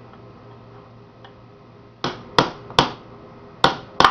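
Hammer striking a cold chisel set against the head of a tamperproof screw, driving it counterclockwise to loosen it. About two seconds of quiet, then five sharp strikes, a few per second, each ringing briefly.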